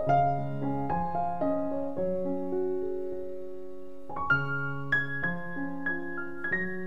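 Background piano music: slow, gentle notes and chords, growing busier and higher in the second half.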